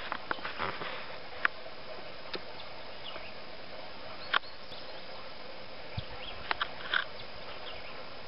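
Steady outdoor hiss broken by scattered sharp clicks and knocks, handling noise from a camcorder being moved about, with a few faint short high chirps.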